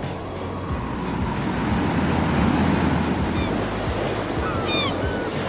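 Ambient waves washing, swelling and easing, with a few short high chirps from about three seconds in.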